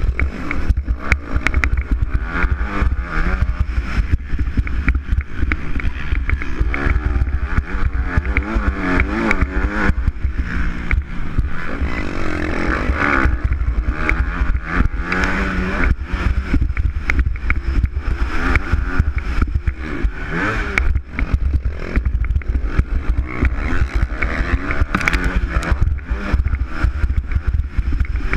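Motocross bike engine heard from on board, its revs rising and falling again and again as it is ridden hard around the dirt track, with heavy wind rumble on the microphone.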